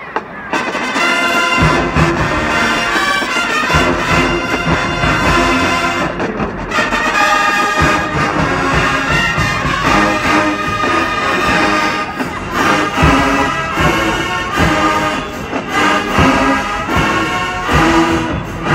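Marching band playing at full volume: a big brass section of trumpets, trombones and low horns over a drumline, with heavy bass-drum hits. The band strikes up about half a second in.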